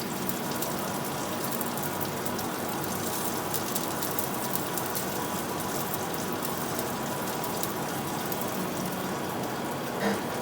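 Oven-roasted pork belly sizzling and crackling on the pan just out of the oven: a steady hiss full of fine pops. A single short knock sounds just before the end.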